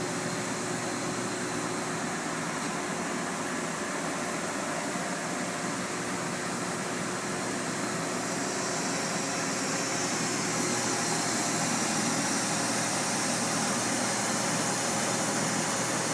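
Steady mechanical hum with a broad hiss, growing a little louder and hissier from about halfway in.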